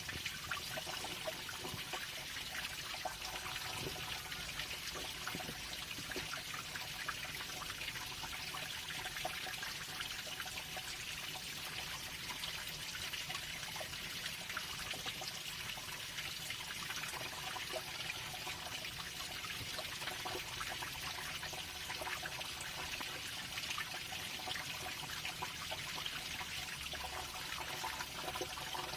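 Steady trickle of running water, with fine splashes.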